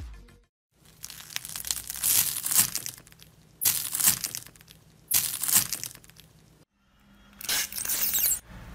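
Slime being squeezed and stretched by hand, crackling and popping in about four separate bursts with short pauses between them.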